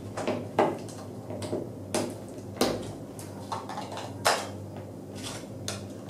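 Irregular plastic clicks and knocks as a 9-volt battery is snapped onto its connector and fitted into the battery compartment of a small plastic device, and the compartment cover is handled.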